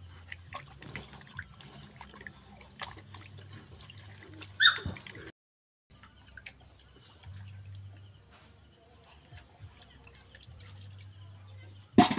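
Hands scrubbing ube (purple yam) tubers in a plastic basin of water, with soft sloshing and small splashes. A steady high-pitched buzz runs underneath, and the sound cuts out for about half a second around the middle.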